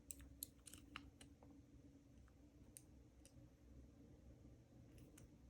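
Faint, sparse clicks of a dimple pick and tension tool working the pins inside a five-pin dimple padlock: a quick cluster of clicks in the first second and a half, then a few scattered ones.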